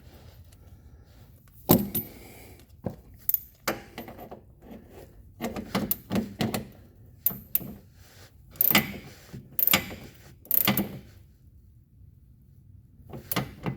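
Irregular metallic clinks and knocks of tools and parts being handled during a differential fluid top-up, some in quick clusters, with a quiet pause near the end.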